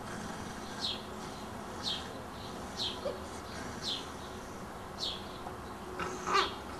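A small bird chirping repeatedly: a short, high note falling in pitch, about once a second. A brief louder, lower sound comes about six seconds in.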